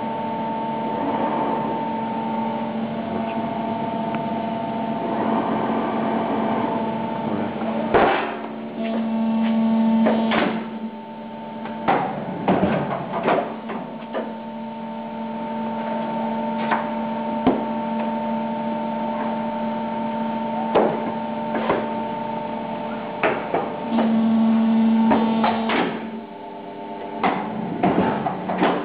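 Adast Maxima MS 80 guillotine paper cutter running with a steady hum, broken from about eight seconds in by a series of sharp knocks and clunks as it works. Twice its low hum grows louder for a second or two.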